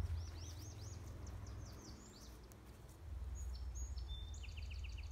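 Songbirds calling: a string of short arched chirps in the first second, then a fast trill of evenly repeated notes near the end, over a low rumble.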